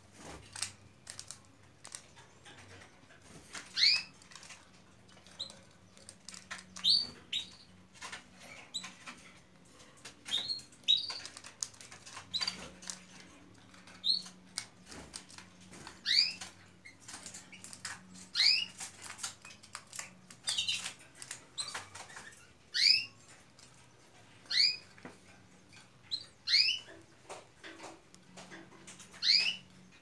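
Domestic canaries in a wire cage giving short, rising call notes every two to three seconds, with light clicks, taps and wing flutters from the birds moving on the perches and bars.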